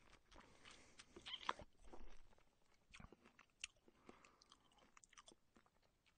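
A person eating close to the microphone: irregular wet mouth clicks, chewing and short slurping sounds, fairly quiet.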